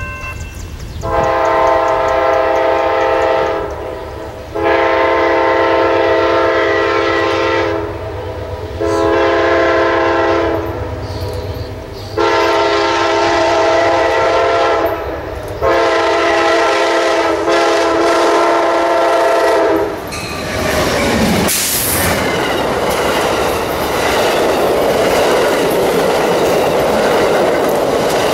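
Nathan K5LA five-chime horn on an Amtrak P42DC diesel locomotive sounding five long blasts for a grade crossing, the last two with only a brief break. About 20 seconds in, the train passes close by with a loud rumble of the locomotives and bilevel Superliner cars, wheels clicking over the rail joints.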